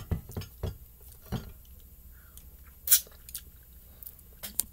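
Scattered light clicks and taps of chopsticks and a cup being handled at a pan of noodles, with soft mouth sounds of eating; the sharpest click comes about three seconds in, with a few more near the end.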